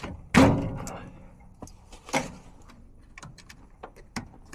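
Knocks and clicks of metal parts being handled on an air handler: one loud knock about half a second in that rings briefly, another near two seconds, and several small clicks.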